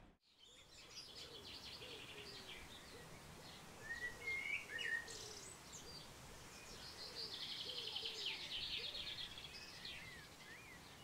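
Several wild birds singing: rapid chirping trills and short slurred whistles, busiest about four to five seconds in and again from about seven to nine seconds, over a faint outdoor hiss.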